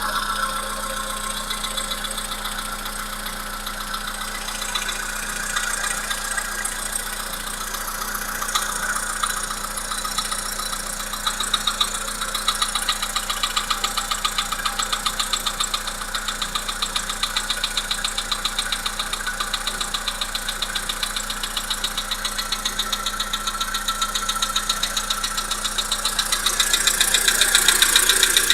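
Volkswagen Polo Sedan's 1.6 CFNA four-cylinder petrol engine running with a fast, regular knock. The knocking gets more distinct about halfway through and a little louder near the end.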